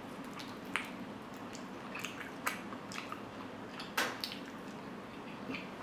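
Quiet eating sounds: soft wet chewing with a few scattered sharp clicks, the loudest about four seconds in.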